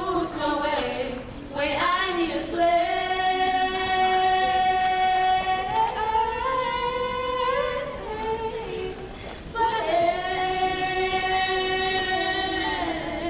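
Three women's voices singing a cappella, holding long notes in harmony, in phrases with short breaks, the longer one about nine seconds in.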